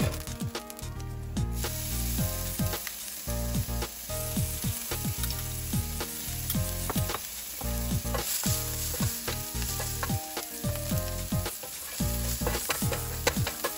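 Diced garlic and ginger sizzling in hot oil in a stainless steel frying pan, a steady crackling hiss that grows fuller about a second and a half in. A wooden spoon stirs the pan near the end.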